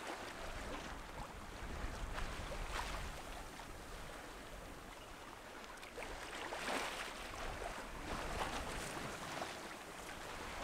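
Waves and water rushing along a Westsail 32 sailboat's hull under sail at sea, building in uneven surges every few seconds, with wind rumbling on the microphone.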